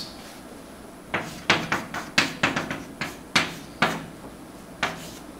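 Chalk on a blackboard: a run of quick, irregular taps and short scratches as symbols are written, with a last single stroke near the end.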